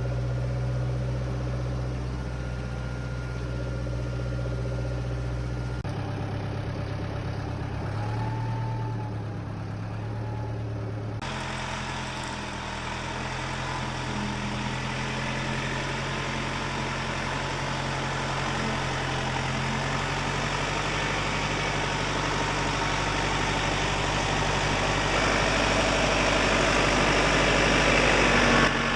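Vehicle engine running steadily, with its tone changing abruptly at a couple of points, as between spliced shots.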